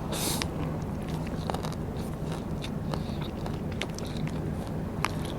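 Close-miked chewing of Vietnamese rice paper snacks (bánh tráng): scattered small crisp crackles and mouth clicks, with a short crunch right at the start.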